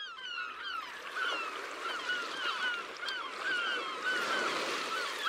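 A flock of birds calling, many short rising-and-falling calls overlapping at several a second.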